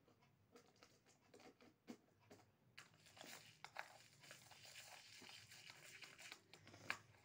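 Faint handling noises from toy kitchenware: soft clicks and knocks of spoons and small cups being moved, with light rustling that grows from about three seconds in.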